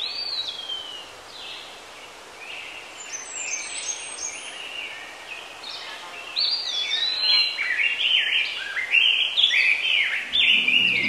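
Songbirds singing: a run of short chirps and falling whistles, growing busier and louder about halfway through, with music coming in near the end.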